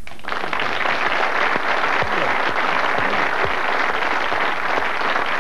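Studio audience applauding, breaking out suddenly just after the start and holding steady.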